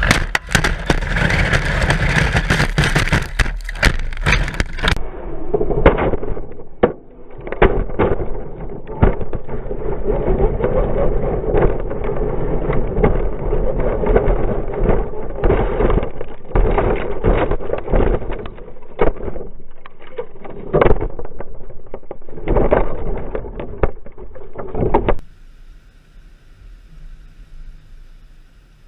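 A radio-controlled car dropped from a car at highway speed tumbles and scrapes along the road in a dense rush of wind and road noise, with many hard knocks. The clatter stops suddenly about 25 seconds in, leaving only a faint hum.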